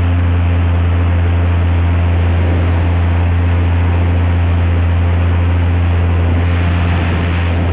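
Airboat's Lycoming aircraft engine and propeller running steadily, a loud, constant low drone.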